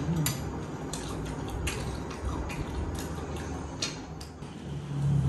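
Cutlery clinking and tapping against plates during a meal, a handful of short, scattered clicks over a low steady hum. Near the end a louder low hum swells in.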